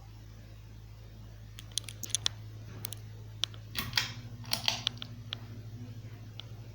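Ceiling fan motor humming steadily, with a scatter of sharp clicks and ticks through the middle, thickest about four to five seconds in.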